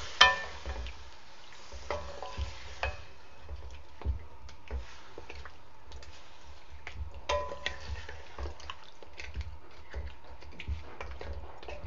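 Wooden spatula stirring yogurt-marinated chicken pieces in a metal wok, with a sharp knock against the pan just after the start and scattered taps and scrapes after it. The oil sizzles at first and dies away within a few seconds.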